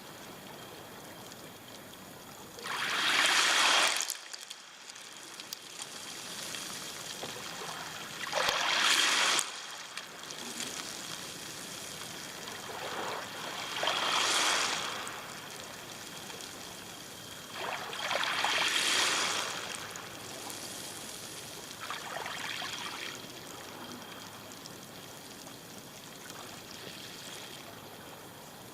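Small waves washing up a pebble beach and draining back, a steady hiss broken by five surges of one to two seconds about every five seconds. The first two surges are the loudest.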